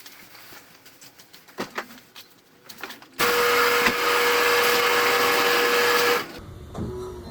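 A 1996 Honda Civic's starter motor cranking the engine with a steady whine for about three seconds, a few faint clicks before it. The cranking stops and a lower rumble follows near the end.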